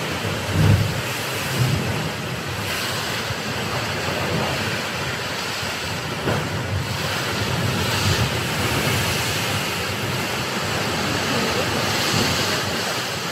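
Wind buffeting the microphone over a steady wash of sea surf, with a few stronger gusts in the first couple of seconds.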